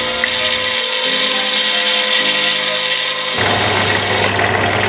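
Benchtop drill press running, its stepped cone bit boring a hole through the centre of a plastic bottle cap. The motor's steady whine starts right at the outset, and a deeper hum joins it a little past halfway.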